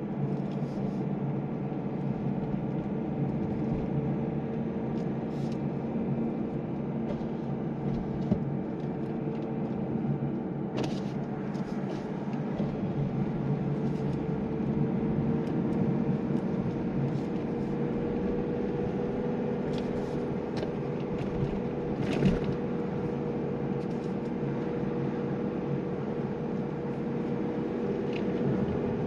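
Mazda2 (Demio) driving, heard from inside the cabin: a steady engine drone over road noise, its pitch creeping slowly upward. A few short clicks or knocks break in now and then.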